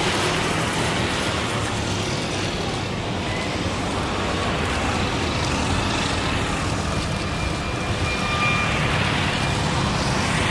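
Steady rushing rumble of a Boeing 777-300ER's GE90 turbofan engines as the airliner taxies close by, with a faint high whine in places.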